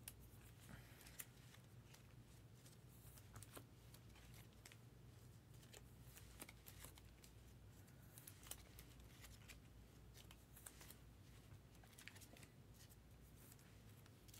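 Near silence: faint, scattered clicks and rustles of trading cards and a pack wrapper being handled, over a low steady hum.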